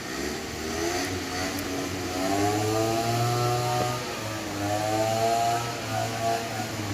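A small engine running, its pitched hum swelling and easing twice.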